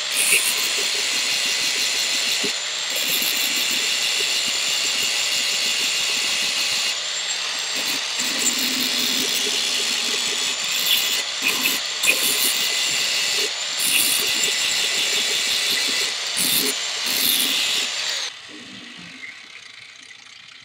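Electric angle grinder running at full speed on a 3/8-inch steel plate, a steady high whine with the grinding noise swelling and easing as the disc bears on and lifts off the metal, cleaning layout marks from a weld test coupon. Near the end it is switched off and winds down.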